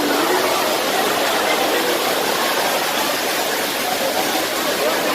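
Steady, loud hiss of heavy rain falling.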